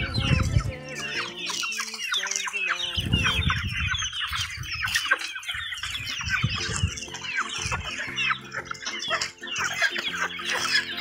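A flock of chickens clucking, many short calls overlapping at once.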